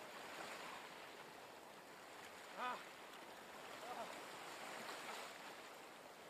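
Faint, steady wash of sea surf. About two and a half seconds in comes one short pitched cry, the loudest moment, and a fainter short one follows about a second later.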